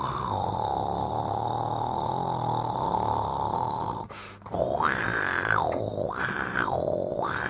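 A person snoring: one long drawn-out snore lasting about four seconds, then, after a brief pause, a wavering snore whose tone rises and falls about three times.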